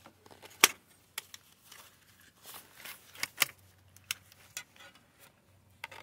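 Hard plastic seat belt guide and the belt's metal anchor hardware clicking and clinking as they are pried and twisted together by hand: a string of scattered sharp clicks, the loudest about half a second in.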